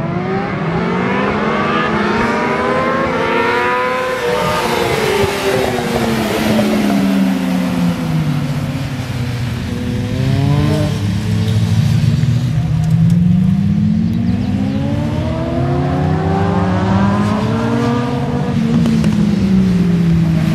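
A pack of racing motorcycles running on a circuit, several engines revving hard: their pitch climbs as they accelerate and then falls away as they pass, in two main waves with a brief rise in between.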